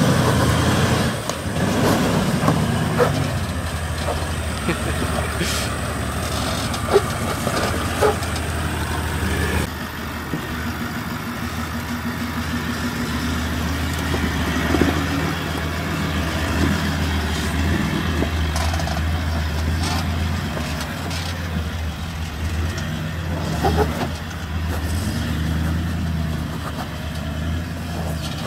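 Toyota LandCruiser VDJ76's 4.5-litre turbo-diesel V8 running steadily at low revs while the truck crawls over rock in low range, with a few sharp knocks.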